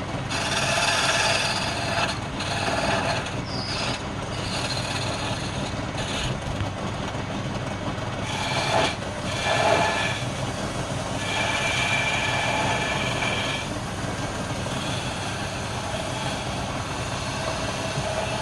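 Wood lathe running while a tool or abrasive rubs on the spinning wood: a steady noise with shifting high-pitched tones and a few brief swells.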